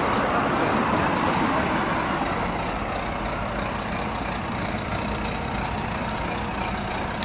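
Steady city road traffic noise: a continuous rumble of vehicles, a little louder in the first couple of seconds as a car passes, then easing off.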